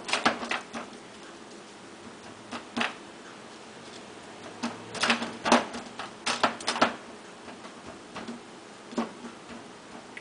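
A hand patting and pressing a dry spice rub into raw steaks on a ceramic plate, making irregular clusters of short taps and clicks.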